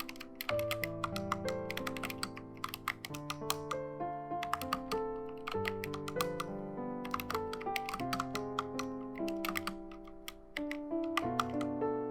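Typing on a Helen 80 custom mechanical keyboard with HolyTom V2 switches and XDA-profile keycaps: a stream of irregular keystroke clicks, several a second, over background music with held notes.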